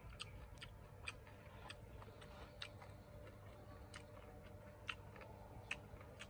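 Faint, irregular sharp clicks, a few each second, over a low steady background hum.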